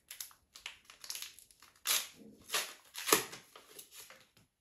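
Trading-card pack wrapper being torn open and crinkled in a run of short, irregular rustling bursts, the loudest about two to three seconds in.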